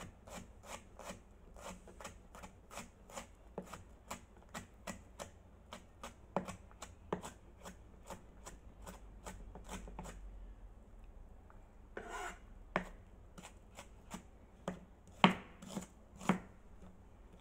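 Kitchen knife chopping red onion on a plastic cutting board: quick, even strokes about three a second for roughly ten seconds. After that come a few scattered knocks, the loudest near the end.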